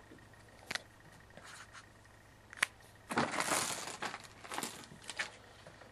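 Hands handling objects on a tabletop: a few light clicks and knocks, with about a second of crinkly rustling a little after three seconds in.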